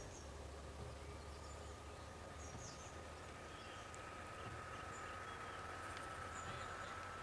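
Faint roadside outdoor ambience: a steady low rumble with a thin, steady high tone and a few short bird chirps.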